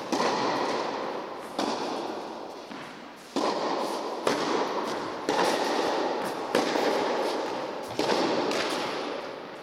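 Tennis balls struck by rackets, about seven sharp hits a second or so apart, each echoing with a long fading tail in a large indoor tennis hall.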